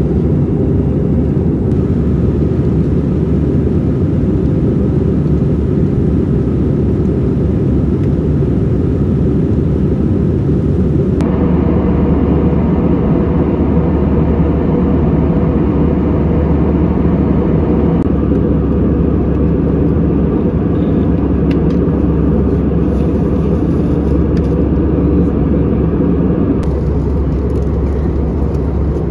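Steady low rumble of an Airbus A320-200 in flight, engine and airflow noise heard from inside the economy cabin. Its tone shifts slightly a few times, a third of the way in, past the middle and near the end.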